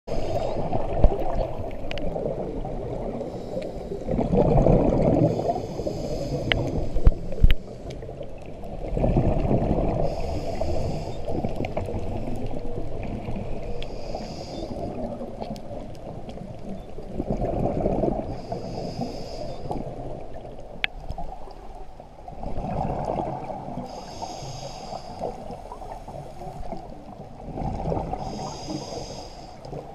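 Scuba diver breathing through a regulator underwater: a hiss on each inhale and a rumbling rush of exhaled bubbles, about one breath every four to five seconds. A few sharp clicks sound in between.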